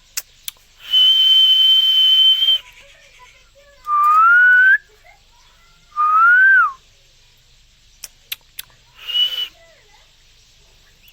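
Pet green parrot whistling: a long steady high whistle, then two shorter whistles sliding up in pitch, the second dropping away at its end, and a brief high whistle near the end, with a few sharp clicks in between.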